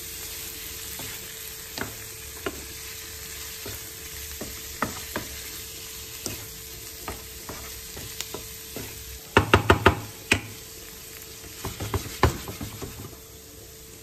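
Diced chicken breast with onion sizzling in a non-stick frying pan as a wooden spatula stirs it, scraping and knocking against the pan. A quick run of louder clacks comes a little past the middle, and a few more later.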